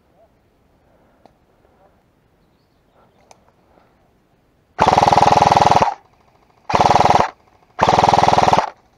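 Airsoft rifle firing three full-auto bursts, about a second, half a second and most of a second long, each a rapid rattle of shots that stops abruptly.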